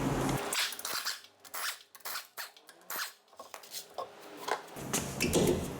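A series of short metallic scrapes and clicks of tools and parts being handled during hub bearing replacement.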